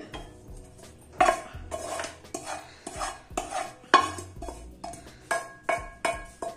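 A spatula scraping and knocking against a frying pan in a string of irregular strokes, scraping cooked vegetables out into a bowl. The pan rings briefly on the last few strokes.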